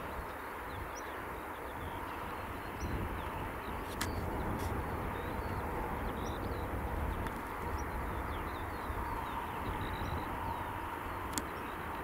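Wind rumbling on the microphone, with small birds chirping now and then in the background.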